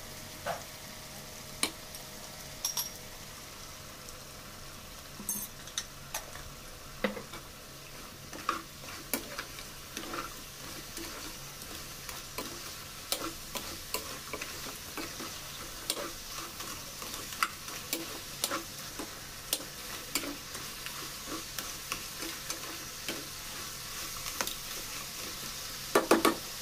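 Crab curry sizzling in a non-stick pan while a steel ladle stirs it, clicking and scraping against the pan at irregular intervals. A few louder knocks of the ladle come near the end.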